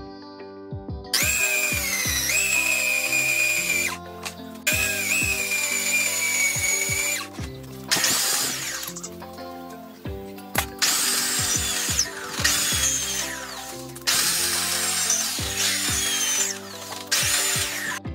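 Handheld electric drill running in about six bursts of one to three seconds, boring into a steel table frame. Its high whine dips in pitch as the bit bites, over background music.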